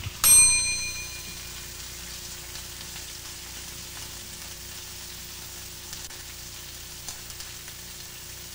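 A kitchen timer bell rings once, a bright ding that dies away within about a second, over hamburgers sizzling steadily in a frying pan.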